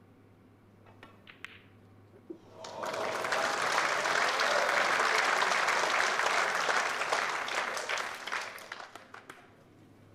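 A few sharp clicks of snooker balls as the cue ball is struck and hits the object ball, then a crowd applauding the pot; the applause swells up quickly, holds for several seconds and dies away near the end.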